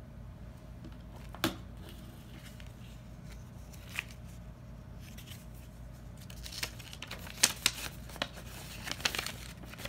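Paper handling: two isolated sharp clicks, then a run of crisp rustles and clicks in the second half as a paper instruction pamphlet is picked up and leafed through, over a steady low hum.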